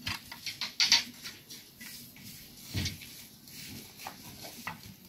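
Steel reinforcing bars clinking and knocking as a hand rebar-bending bar is levered against them: a quick run of sharp metallic clicks in the first second, then a heavier knock about three seconds in.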